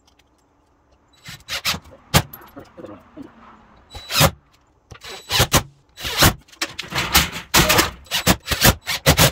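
Knocks, clicks and clatter from a cordless drill driving screws to fasten small wooden brackets to overhead wooden rafters. It starts about a second in and grows busier toward the end.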